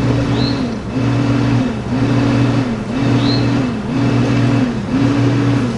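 A loud, steady machine hum that dips in pitch and comes back about once a second, in an even repeating cycle, with a faint high chirp twice.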